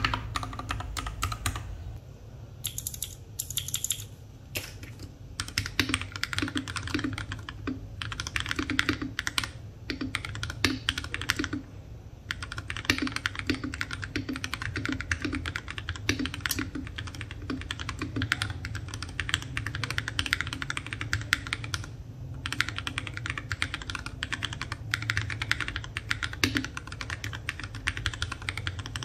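Typing on an FL680 mechanical keyboard with Tecsee Purple Panda tactile switches and NJ80 keycaps: rapid, steady keystrokes with a few short pauses. This is a switch sound test, where each key should sound solid and rounded, not hollow.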